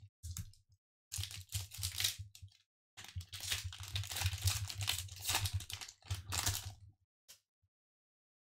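Foil wrapper of a Pokémon Vivid Voltage booster pack being torn open and crinkled by hand, in several bursts of tearing and rustling.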